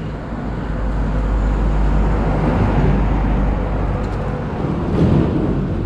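Wind rushing over the microphone and mountain-bike tyres rolling on asphalt while riding along a road: a steady noisy rumble that swells a little from about a second in.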